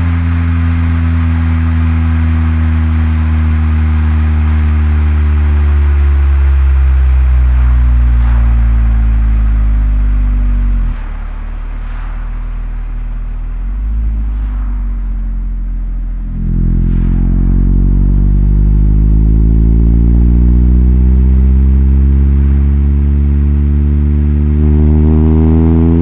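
1994 Nissan Primera P10's 1.6-litre four-cylinder engine under way. The revs sink slowly, then drop sharply about eleven seconds in and the engine goes quieter. About five seconds later it pulls again, and its note climbs steadily until near the end.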